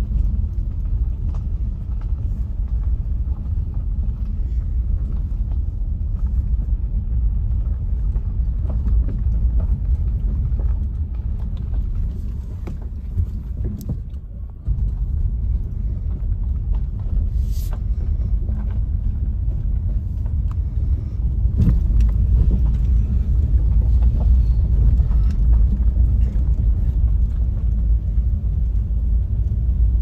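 A vehicle on the move: a steady low rumble of engine and road that dips briefly midway and grows louder about two-thirds of the way through.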